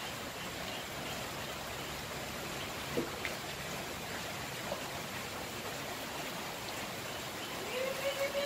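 Banana fritters sizzling steadily in hot oil in a wok, with a couple of light utensil clicks a few seconds in. A steady held note starts near the end.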